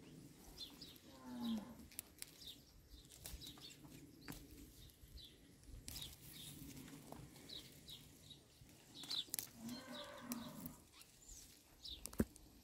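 Faint cow mooing twice, once about a second in and again around ten seconds, with small birds chirping now and then.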